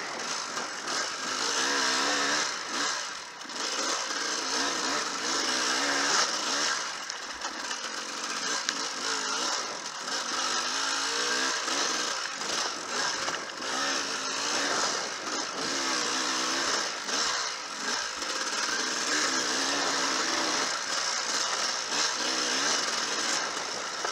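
Enduro dirt bike engine, recorded from the rider's helmet camera, revving up and down over and over as the rider works the throttle along a twisty woodland trail, with occasional knocks from the rough ground.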